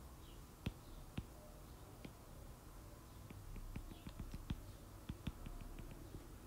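Faint taps of a stylus tip on a tablet's glass screen as short pen strokes are drawn: a few scattered taps, then a quick run of taps in the second half as the dashes of a dashed line go down.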